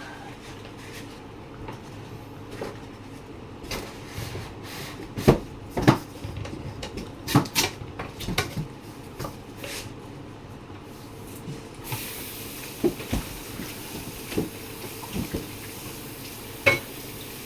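Hands unpacking and setting up a boxed party speaker: a string of sharp knocks and clicks from the speaker and its packaging, loudest in the first half, with a soft steady hiss joining in the second half.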